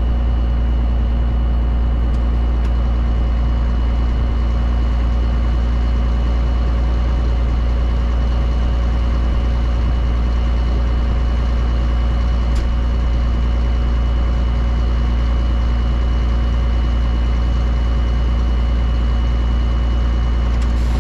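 Allis-Chalmers 7095 tractor's diesel engine pulling a forage chopper under load, with the chopper running behind it: a steady, even machine drone with a few constant whining tones over it.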